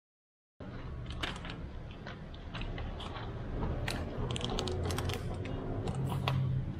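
Dead silence for the first half second, then irregular sharp clicks and light taps, several a second at times, over a steady low hum.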